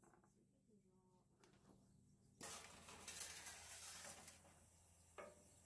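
A metal roasting pan is slid into a wood cook stove's oven, scraping along the rack for about two seconds, followed by a single light knock.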